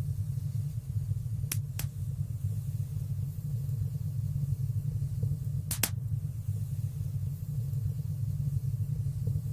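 Wood fire burning in a stone fireplace: a steady low rumble with a few sharp crackling pops, two close together about a second and a half in and two more just before six seconds.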